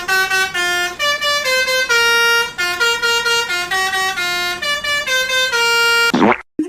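Telolet Basuri musical bus horn playing a quick tune of held, stepping notes. Near the end it breaks off into a short swooping sound and then stops.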